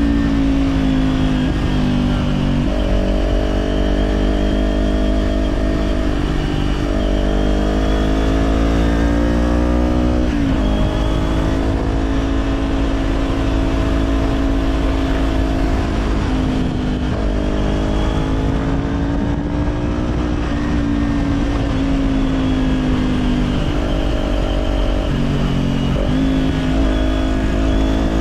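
Kawasaki Z400 parallel-twin engine through an Orion Katya slip-on exhaust, under way on the road. The engine note climbs and falls with the throttle, with a sudden drop in pitch about ten seconds in and another near the end before it climbs again.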